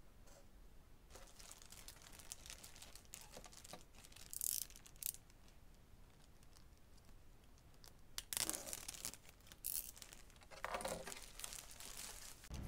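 Faint crinkling and tearing of a plastic courier mailer bag as it is cut open and its contents are pulled out. The sound comes in short scattered bursts, busiest a little past halfway.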